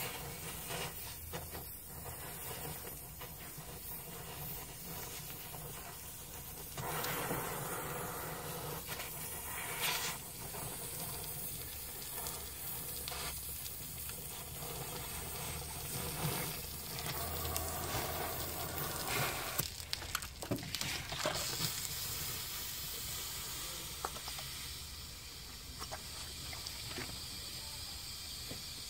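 Electric arc welding on steel: the arc hissing and crackling steadily.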